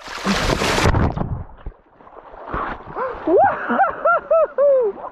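A man plunges into cold lake water with a loud splash and thrashes as he swims, then lets out a quick string of short, high yelps near the end.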